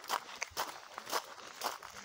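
Footsteps crunching on a gravel trail at a walking pace, about two steps a second.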